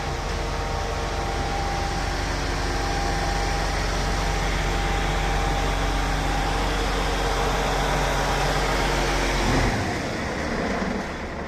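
An engine running steadily with a deep hum. Near the end its low tone drops away and a noisier sound is left.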